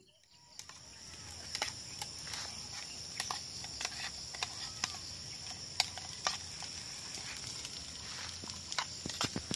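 Meat frying in a small camp pan: a steady sizzle with scattered sharp clicks of a utensil stirring against the metal.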